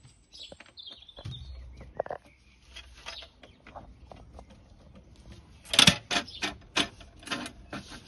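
Sharp plastic clicks and knocks from a weatherproof outdoor double socket being closed and pressed onto its back box, with the loudest cluster about six seconds in and a few more clicks after it. Birds chirp faintly near the start.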